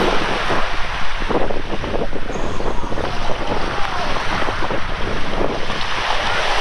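Sea waves washing onto a sandy beach, with wind buffeting the microphone.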